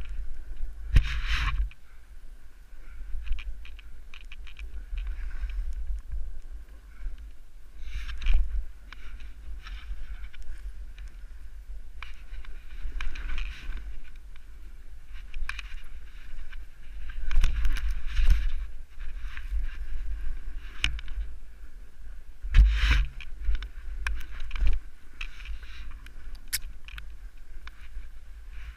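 Wind rumbling on a body-mounted camera's microphone as a rider descends through deep powder snow, with louder hissing surges of sliding, spraying snow every few seconds as the board or skis turn.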